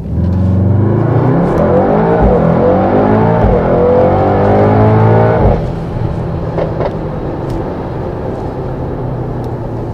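Mercedes-AMG GT63 S's 4-litre V8 under full-throttle launch from a standstill, rising in pitch through quick gear changes. About five and a half seconds in it eases off to a quieter, steady cruising drone.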